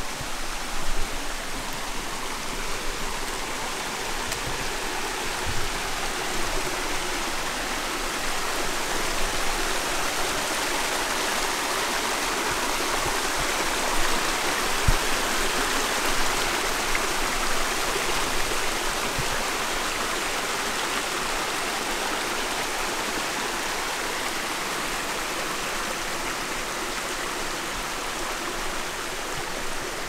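Steady rush of a stream's running water, growing a little louder around the middle.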